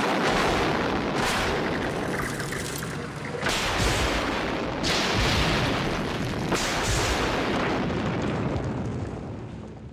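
Dynamite charges going off in reinforced concrete walls: a string of sudden blasts, each trailing off into a rumble, fading out near the end.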